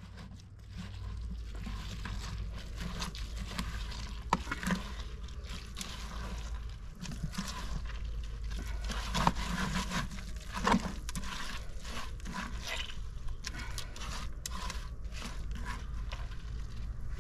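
Hand rubbing mashed pomegranate seeds back and forth over a perforated metal strainer in an aluminium pot, giving irregular wet scraping strokes as the juice is pressed out. A low steady rumble runs underneath.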